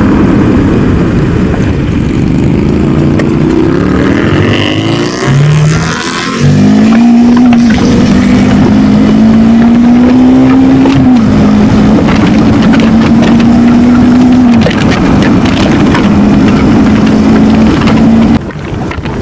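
Motorcycle engine accelerating hard. Its pitch rises in each gear and drops at each shift, several times, and the engine eases off near the end.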